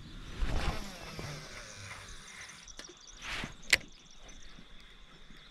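Angler's gear bumping and rustling against the rocks, then a cast with a baitcasting rod: a short whoosh of the rod through the air about three seconds in, followed by one sharp click from the reel. A faint steady high tone runs underneath.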